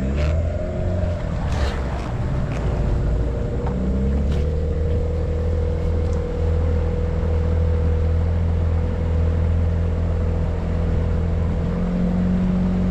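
Outboard motor of a small aluminium boat running steadily at cruising speed, with the wash of the hull through the water. A few light knocks sound in the first five seconds.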